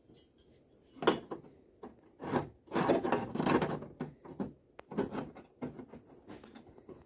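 Irregular scraping and rubbing strokes, a handful of rough passes with sharp ticks among them, loudest in the middle.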